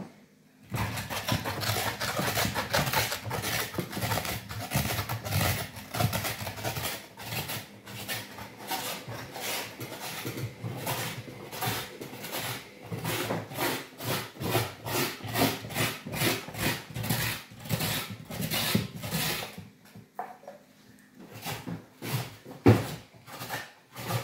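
Raw pumpkin flesh scraped into shreds with a knife: a run of rasping strokes, about three a second, that thins out near the end, where there is one sharp knock.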